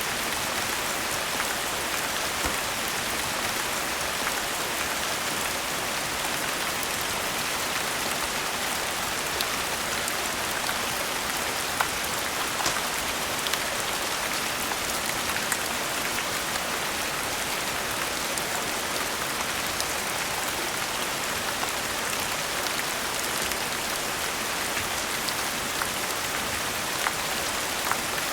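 Steady rain: an even hiss, dotted with scattered sharp ticks.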